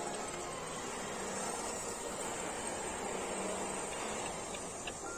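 Small electric motors and gearboxes of several RC crawler trucks whining steadily as they drive slowly over the forest floor.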